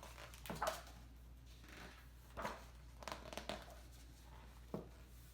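Paper pages of a picture book rustling as it is opened and handled, in a few short rustles: one about half a second in, more around two and a half to three and a half seconds, and a last one near the end.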